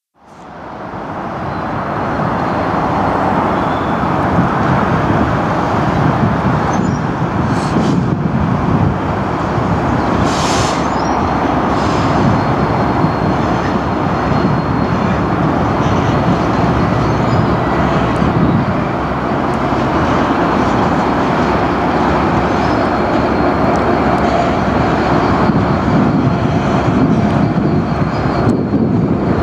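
Class 66 diesel-electric locomotive hauling a freight train, its two-stroke V12 diesel engine running under a steady loud rumble of engine and wheels. The sound fades in over the first couple of seconds, and there is a brief high-pitched squeal about ten seconds in.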